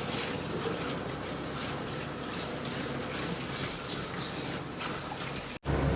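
Water trickling, with rubbing and light handling sounds from kitchen work. It cuts off suddenly near the end, giving way to a louder low hum.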